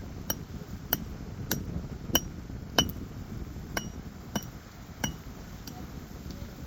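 About nine sharp metallic taps at a steady pace, each with a brief ring, over the steady rush of a river.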